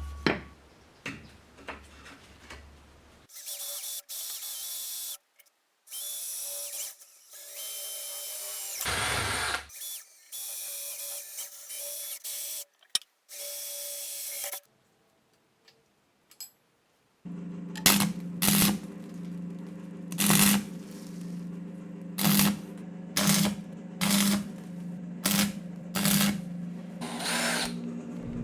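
Power tools running in short stop-start bursts. Later a machine runs steadily with a low hum, with louder surges about once a second.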